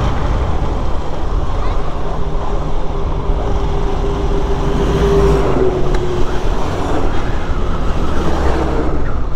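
Motorcycle being ridden: its engine running steadily under heavy wind and road noise on the microphone.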